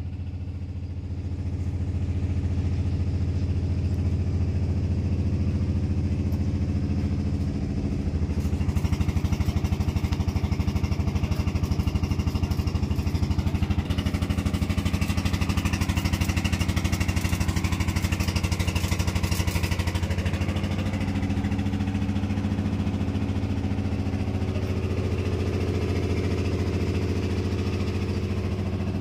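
An engine running steadily. It grows a little louder about a second and a half in, runs louder with an added hiss from about 8 to 20 seconds in, then eases back.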